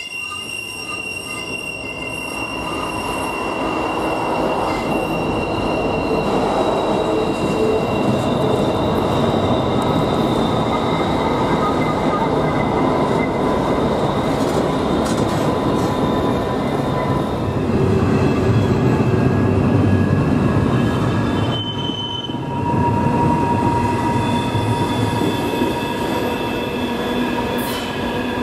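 Freight train cars rolling through a sharp curve with wheel flange squeal: several steady high squealing tones over a continuous rumble of wheels on rail, dipping briefly about three-quarters of the way through.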